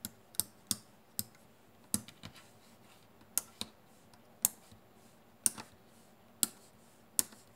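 Small plastic rocker switches on a 7-port individually switchable USB 2.0 hub (XYSTEC/Pearl) being flipped on and off by finger: about a dozen sharp clicks at irregular intervals, some in quick pairs. The switches are worn, with intermittent contacts that make the ports drop out.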